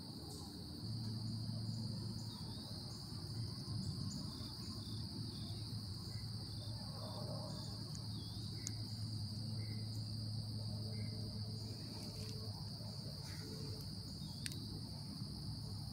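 A steady, high-pitched chorus of insects trilling without a break, with a low steady hum underneath starting about a second in and a few faint ticks.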